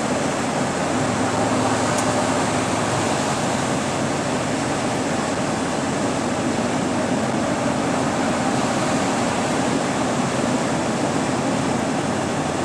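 Steady road and engine noise inside a tractor-trailer's cab while driving on a wet, snowy highway: an even hiss with a low hum underneath.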